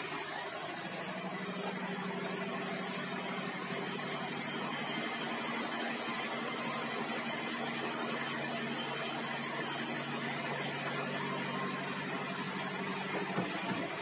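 Large band sawmill's blade ripping through a meranti log fed on a carriage: a steady high hiss from the cut over the steady hum of the drive. The cutting hiss stops about a second before the end, leaving the machine running.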